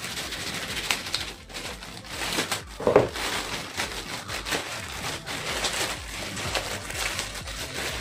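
Clear plastic wrapping crinkling and crackling as it is peeled off a badminton racket, with one knock about three seconds in.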